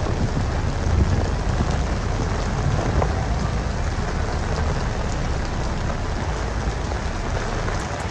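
Heavy rain pouring steadily on a city street, with a constant low rumble underneath.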